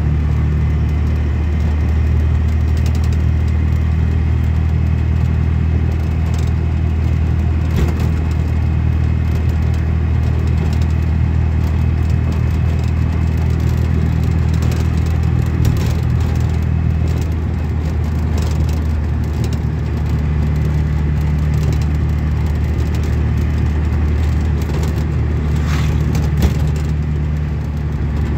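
Steady low rumble of a moving road vehicle's engine and tyres, heard from inside the cabin, with a few faint clicks and rattles.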